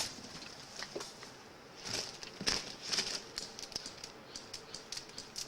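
Scattered sharp clicks and taps, with a few louder sharp ones about two to three seconds in.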